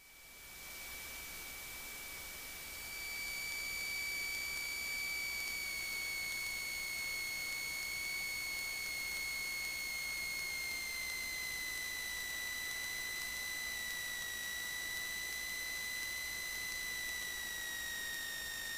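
A steady high-pitched electrical whine in the Cessna 150's headset intercom audio, over a faint hiss. It drifts slowly lower in pitch and gets a little louder about three seconds in.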